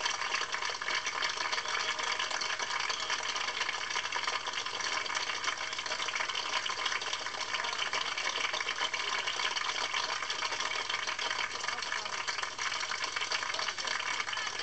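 A crowd applauding steadily, a dense even patter of many hands clapping, heard through the TV speaker playing back an old home video.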